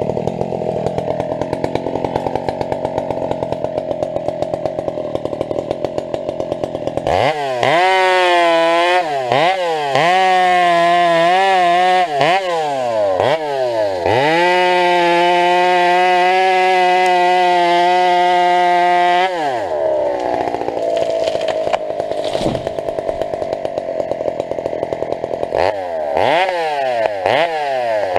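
Husqvarna 372 two-stroke chainsaw cutting through a cottonwood trunk. It idles at first, then is opened to full throttle about seven seconds in, its revs dipping and recovering several times as the chain bites. It holds high revs steadily for about five seconds, drops back to idle, and is revved again in short bursts near the end.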